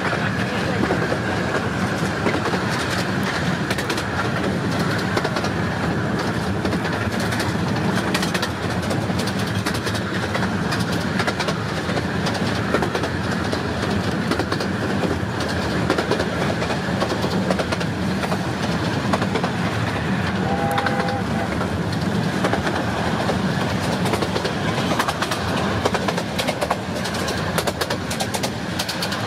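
15-inch gauge miniature train of the Romney, Hythe and Dymchurch Railway running steadily, a constant rumble with the wheels clicking over rail joints. About two-thirds of the way through, a short two-pitch hoot from the locomotive sounds once.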